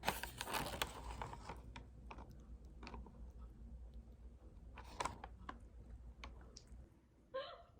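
Light, quick clicks and taps, thickest in the first second and a half and then scattered, with a sharper click about five seconds in and a short pitched sound near the end.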